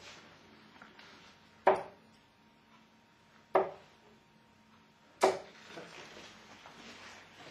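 Three steel-tip darts thudding one after another into a Winmau Blade 4 sisal bristle dartboard, one sharp thud about every second and three quarters.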